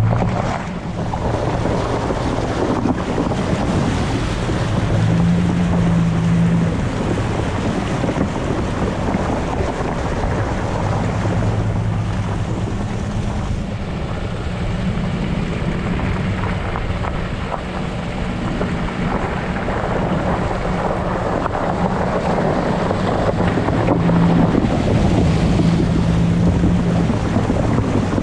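Ford F-150 pickup driving a flooded dirt trail: the engine runs with its note stepping up and down as the throttle changes, while the tyres splash through standing water. Wind buffets the exterior-mounted camera microphone.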